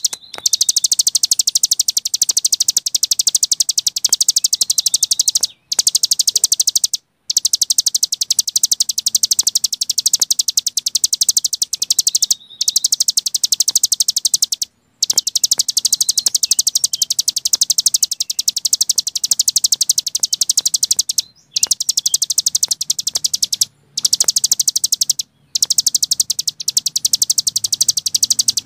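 Cici gunung songbird singing a loud, continuous high-pitched buzzing trill of very rapid notes (the 'ngebren' style), broken by brief pauses several times.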